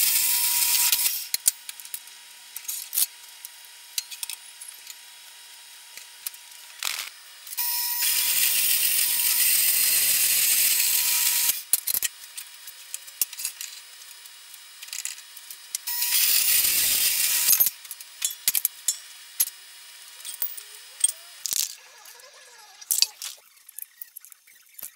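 Horizontal metal-cutting bandsaw cutting steel tubing: three loud hissing stretches that start and stop abruptly, over a steady high tone. Between them come clinks, clanks and rattles of steel tube pieces being handled, and light scraping near the end.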